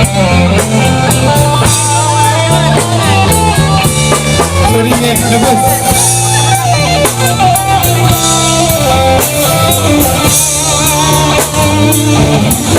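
Instrumental break in a Malay pop ballad: band music with guitar carrying the melody over bass and a drum kit.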